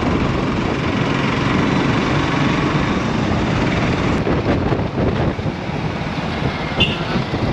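Steady running noise of a moving road vehicle: engine and road rumble mixed with rushing air, with no distinct events.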